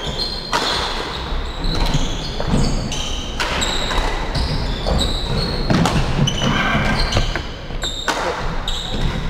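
Badminton play on a wooden hall floor: athletic shoes squeaking sharply and often as players shift and lunge, with a few sharp racket-on-shuttlecock hits.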